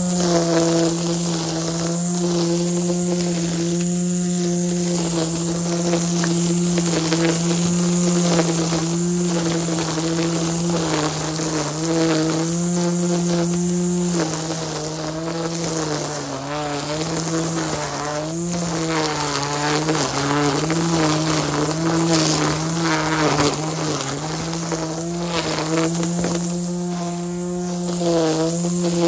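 Hart 40-volt cordless string trimmer's electric motor running at speed with a steady whine. In the second half its pitch sags and recovers again and again as the line cuts into weeds.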